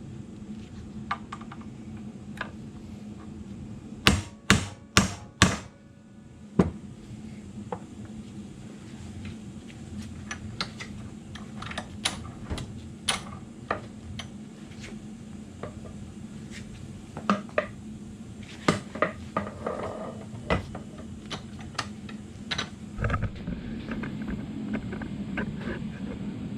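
Hammer blows on metal while a universal joint bearing cap is tapped into a driveshaft yoke: four hard strikes in quick succession about four seconds in and one more shortly after, then scattered lighter taps and clinks of tools and parts.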